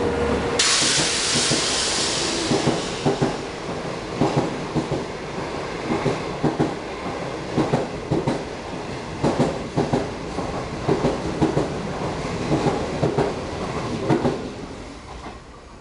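Passenger coaches of a locomotive-hauled intercity train passing at speed through a station. A rush of air hiss starts about half a second in, followed by repeated clicking of the wheels over the rail joints in quick groups as each bogie goes by. The sound fades away as the last coach passes near the end.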